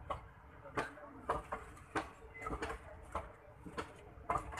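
Indian Railways passenger coaches rolling past, their wheels knocking over rail joints in an uneven run of clacks, some in quick pairs, about every half second over a low rumble.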